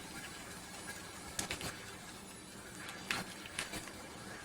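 Light plastic clicks from a handheld Bluetooth gamepad, about six in two small clusters, over a faint steady hiss.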